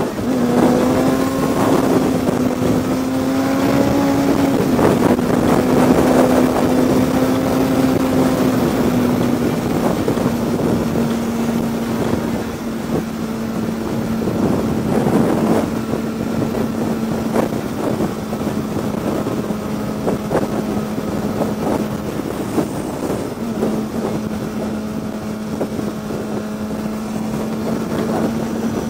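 Sport motorcycle engine running at highway speed, with wind rushing over the microphone. The engine note climbs over the first few seconds, steps down slightly about five seconds in, then holds steady.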